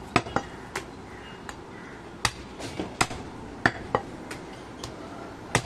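A butcher's heavy knife chopping goat meat on a wooden stump block, the blade striking the wood with about ten sharp knocks at uneven intervals.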